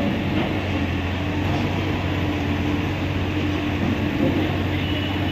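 Diesel engine of heavy construction machinery running steadily with a low, even hum.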